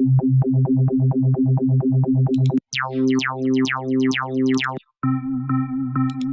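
Presets of FL Studio's Harmless software synthesizer previewed one after another. First a fast run of repeated notes at one pitch, then about two seconds in notes with quick downward pitch sweeps, then steadier held tones. Each preset cuts off abruptly as the next is selected.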